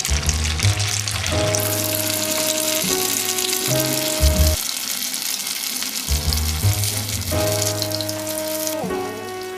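Potato-stuffed bread rolls deep-frying in hot oil, a steady sizzle, with background music playing over it.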